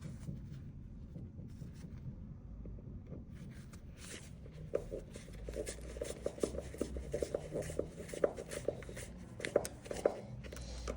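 Small irregular clicks and scrapes of hand work with a screwdriver and earth wire, fastening an earth terminal screw into a metal electrical back box. The clicks start about four seconds in and come quickly.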